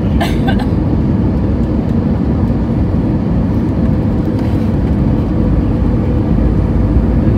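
Airbus A320ceo cabin noise on approach: a steady low rumble of the engines and airflow heard from a window seat, with a faint steady hum. A few brief clicks come about half a second in, and the rumble swells slightly near the end.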